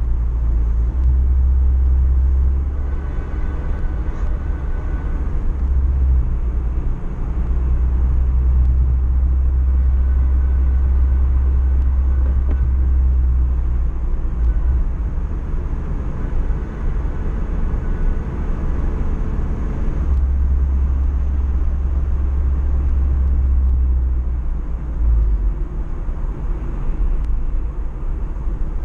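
Road noise from inside a moving car: a steady low rumble of engine and tyres, easing slightly at times as the car slows.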